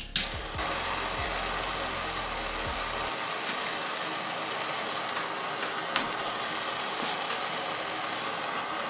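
A heat tool runs with a steady, even rushing noise while a heated pick is worked into the rubber track lug to widen a tie-wrap hole. A few light clicks come about three and a half seconds in and again at six seconds.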